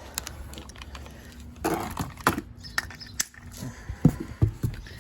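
Handling noise while unboxing mower parts and packaging: a brief rustle, then scattered knocks and clicks, the loudest about four seconds in.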